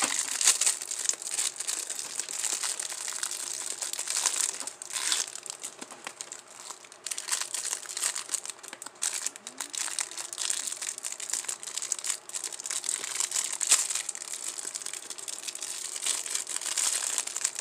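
Clear plastic candy wrappers crinkling and crackling continuously as wrapped gummy candies are handled and set into a paper box, with many small sharp crackles.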